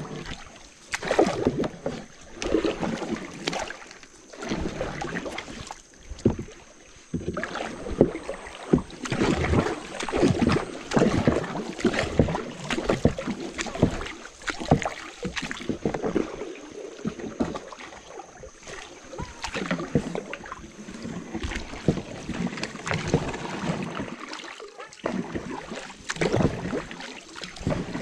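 A small boat being paddled by hand: paddles dipping and pulling through the water, with irregular splashes and knocks.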